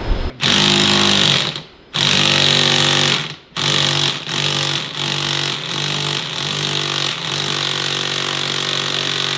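Cordless impact wrench hammering on a bolt in a snowmobile's rear suspension. It runs in three bursts: it stops briefly at about two seconds and again at three and a half seconds, then goes on in one long run.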